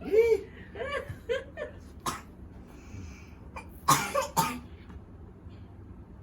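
A person coughing: one short cough about two seconds in, then two louder coughs close together near four seconds, after a few brief voice sounds at the start. This is plausibly the patient who has had a cough for a month.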